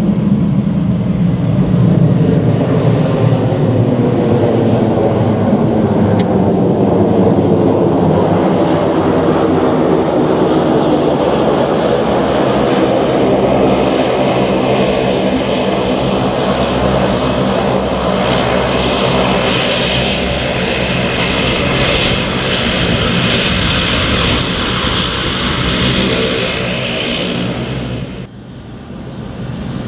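Aircraft engines of a regional airliner passing close by, loud and continuous, with a high whine that grows stronger over the second half. It cuts off suddenly near the end.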